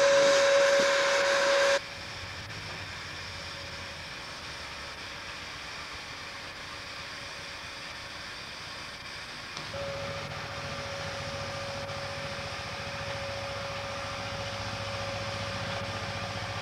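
Narrow-gauge steam locomotive blowing off steam, a loud hiss with a steady tone in it, that cuts off abruptly about two seconds in. After that, a much quieter steady hiss with a low hum.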